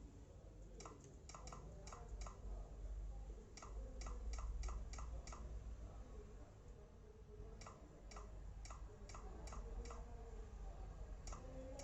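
Keys of a Dell Inspiron 15 3000 laptop's newly fitted keyboard being pressed one after another, short runs of clicks with pauses between, as each key is tested. A low steady hum sits underneath.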